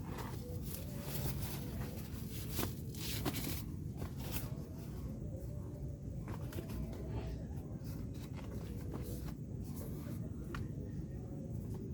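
Irregular rustling, scraping and clicking handling noises over a steady low rumble, busiest in the first few seconds and sparser after.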